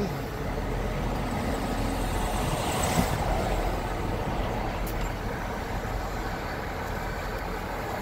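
Parked diesel locomotive idling: a steady low rumble and hum, with a short knock about three seconds in.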